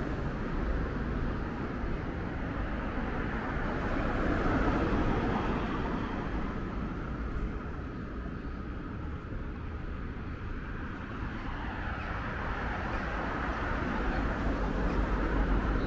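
Road traffic: cars passing along a boulevard, engine and tyre noise rising and falling, loudest about four to five seconds in and again near the end.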